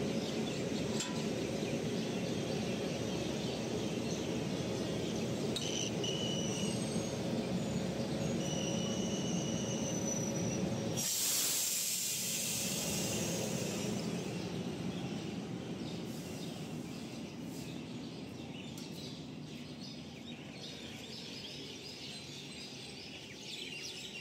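Steady low rumble of railway coaches standing at a platform, with a few bird chirps. About eleven seconds in, a burst of compressed air hisses for about three seconds at the coaches' coupling.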